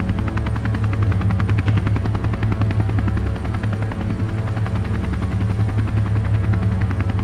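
A steady mechanical chopping: rapid, even pulses over a deep hum, like a rotor turning.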